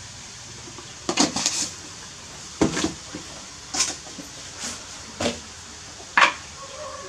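Kitchen handling clatter: about six separate sharp knocks and clinks of containers and utensils being handled at a stove counter, the first a quick cluster about a second in.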